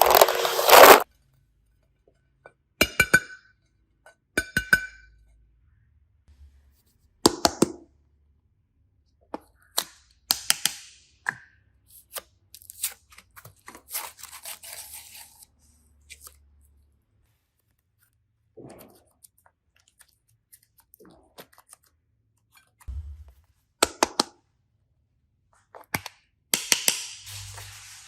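Scattered clicks, taps and light knocks from hands handling small objects on a tabletop, a couple of them with a short clink. A longer stretch of crinkling and rustling comes near the end.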